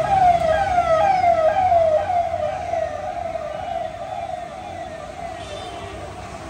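Electronic vehicle siren giving fast, repeated falling wails, about two a second, that grow steadily fainter after about two seconds.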